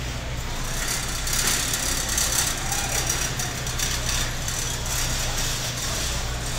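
Warehouse store ambience: a steady low mechanical hum under a broad hiss of background noise, swelling a little for a couple of seconds about a second in.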